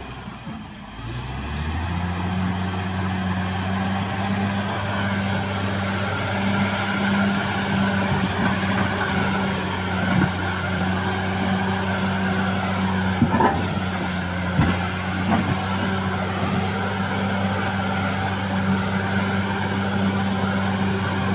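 Caterpillar D6R XL bulldozer's diesel engine working. Its note dips in the first second or two, then climbs back to a steady drone. A few sharp knocks come near the middle.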